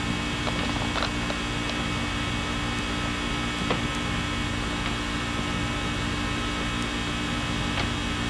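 Steady electrical hum made of several steady low tones, with a few faint clicks.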